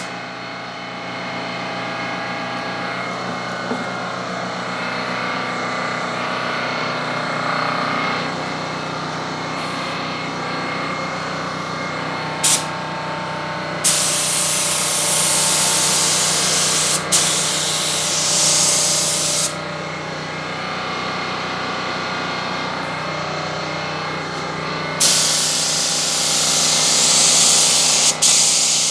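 Spray gun laying on primer, hissing in two long bursts, one of about six seconds a little past halfway and one of about four seconds near the end, with a few short blips before them. A steady motor hum runs underneath.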